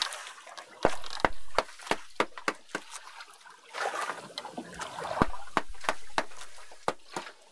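Irregular sharp knocks and clacks of cooking utensils and ingredients being handled, about two a second, with a stretch of rougher scraping and sloshing noise in the middle.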